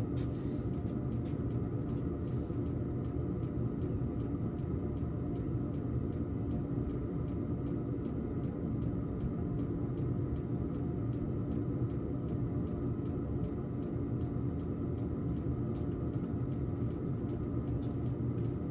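Diesel heater running steadily on a low setting: a continuous combustion and fan rumble with a faint, regular ticking, typical of its fuel dosing pump. The burn chamber is clogged with deposits.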